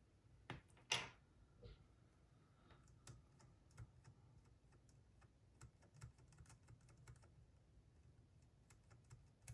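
Faint, scattered clicks and taps of small mechanism parts being handled on the bench, with one louder click about a second in.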